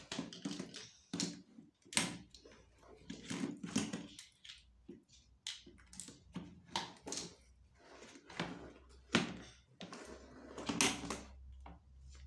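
Hard plastic parts of a toy kitchen set knocking and clicking as they are handled and fitted together: a run of irregular taps and clacks.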